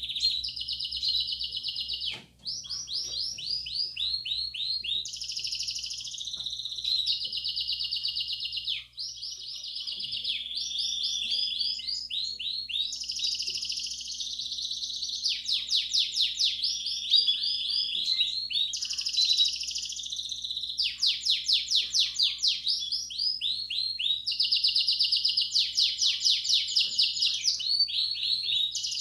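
Belgian canary singing a continuous bell-type (campainha) song of rapid trills and rolls, switching to a new tour every second or two with hardly a break. A faint low hum runs underneath.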